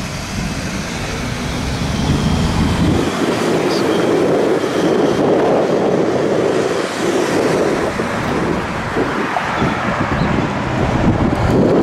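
A heavy vehicle passing close by on the street: a rush of road noise that builds over the first few seconds and then stays loud.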